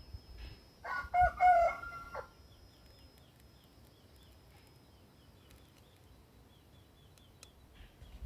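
A chicken crowing once, about a second in, with the call lasting just over a second.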